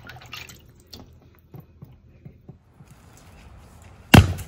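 Faint small knocks of wet chicken pieces being handled in a steel colander at a sink. A little after four seconds in comes a single heavy thud: a sledgehammer striking a log set on end.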